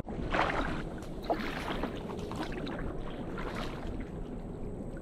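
Kayak paddle strokes: the blade dipping and splashing in the water, several splashes and drips over a steady low hiss of moving water.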